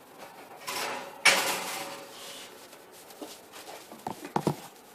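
An oven door being opened, with a sudden rush of noise just over a second in that fades away, followed by a few light knocks and clinks as the cupcake tray is handled.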